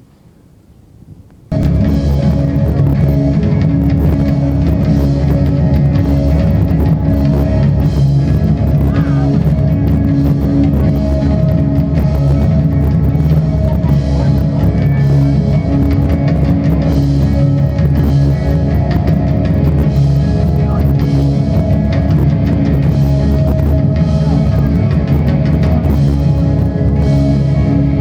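Heavy rock band playing live, loud and dense with drum kit and distorted guitars, recorded from the audience. It cuts in suddenly about a second and a half in, after faint wind, and stays at a steady level.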